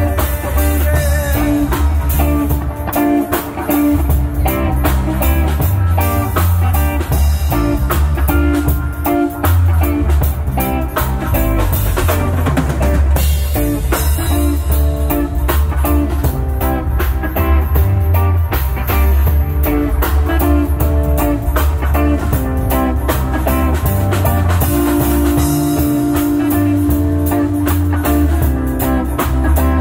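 Live band playing amplified music: a drum kit keeping a steady beat under electric guitar and bass guitar.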